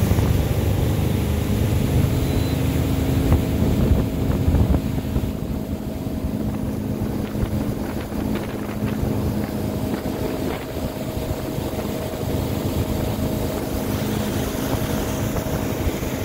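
MasterCraft ski boat's inboard engine running steadily at towing speed, pulling a slalom water skier, with a steady low hum. Wind buffets the microphone over it.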